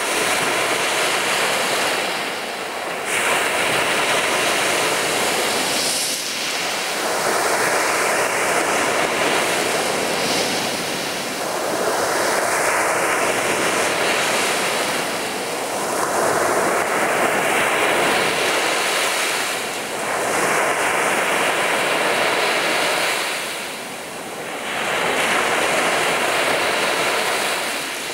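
Black Sea surf: waves breaking and washing up a beach, one surge about every four to five seconds.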